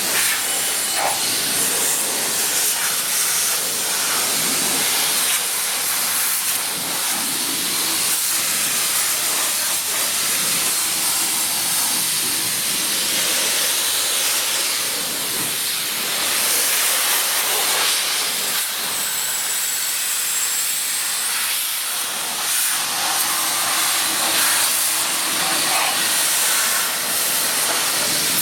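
High-pressure car-wash spray wand blasting water onto an upside-down BMX bike: a steady hiss of spray splattering off the frame and wheels.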